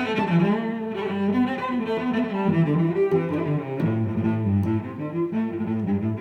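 Background music: a melody of changing pitched notes over a low bass line.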